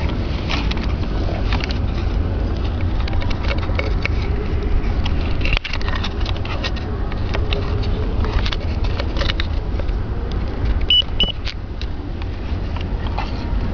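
Clicks and rattles of loose wiring and plastic connectors being handled under a car dashboard, over a steady low rumble, with two short high beeps about eleven seconds in.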